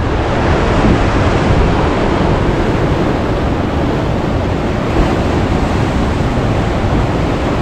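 Sea surf breaking and washing over shoreline rocks in a steady rush, with wind rumbling on the microphone.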